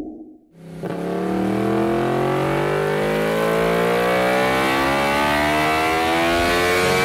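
Motorcycle engine accelerating hard in one long pull, its pitch rising steadily. It starts after a moment of quiet, about a second in.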